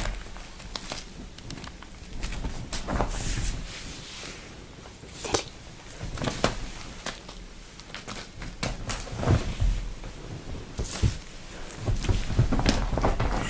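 Scattered light clicks, taps and rustles as a cat plays with a small button toy, batting it and scampering after it across the floor.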